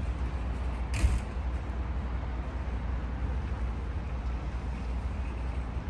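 Outdoor ambience: a steady low rumble, with a single short, sharp clack about a second in.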